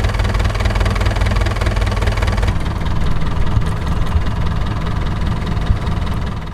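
A small Suzuki outboard motor idling, then from about two and a half seconds in a Yanmar marine engine idling at roughly 700 rpm with a heavy, shaking vibration. Both are the kind of rough-running symptoms that carbon build-up in an engine causes.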